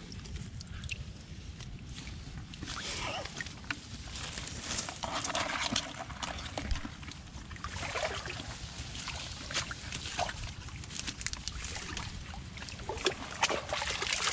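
Scattered splashes, squelches and clicks of hands working in shallow mangrove mud and water and handling live mud crabs and a plastic bucket of crabs, over a steady low wind rumble on the microphone.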